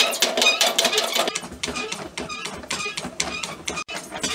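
A treadle sewing-machine base driving a 3D-printed jumbo spinning-wheel flyer through a belt, running at speed while spinning thick yarn: a rapid, irregular mechanical clatter of clicks and rattles.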